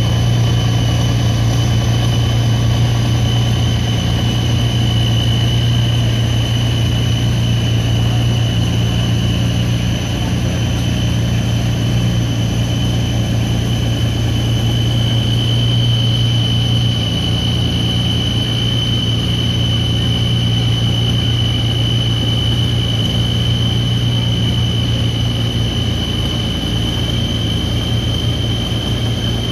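Pulling tractor engine idling steadily, with a constant high whine over its low hum and no revving.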